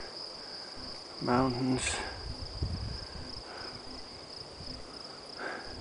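Crickets chirring in a continuous, steady high-pitched trill, with a few low rumbles about halfway through.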